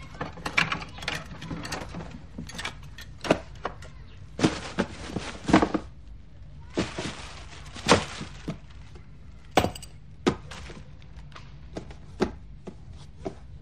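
Household objects being handled and set down during rummaging: a string of sharp knocks and thumps, with two rustling, sliding stretches about four and seven seconds in.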